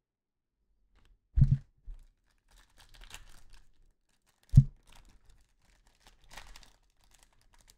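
Foil trading-card pack being handled and tugged at, with faint crinkling and tearing attempts that do not get it open. Two soft thumps, about three seconds apart.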